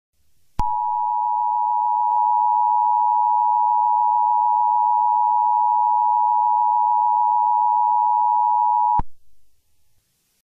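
Emergency Alert System attention signal: two steady tones sounded together, starting abruptly about half a second in and cutting off after about eight seconds.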